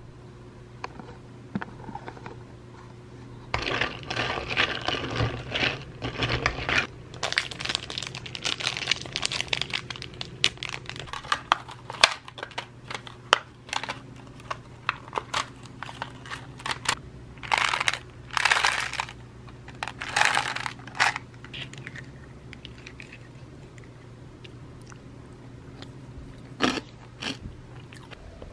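Plastic food packaging crinkling and tearing in several bursts of handling, as a yogurt cup with a separate chocolate-ball topping compartment is opened and the topping is tipped into the yogurt. A steady low hum runs underneath.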